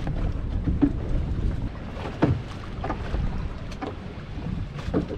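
Wind rumbling on the microphone aboard a small fishing boat, a steady low noise with a few short knocks.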